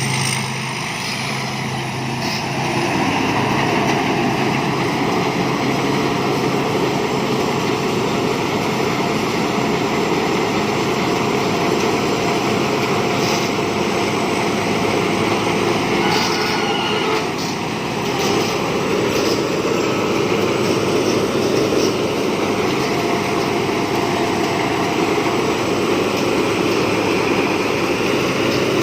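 Thai Seng Yont rice combine harvester running steadily under load, its engine and threshing machinery working while it harvests lodged rice. The level dips briefly about a second in and again around the middle.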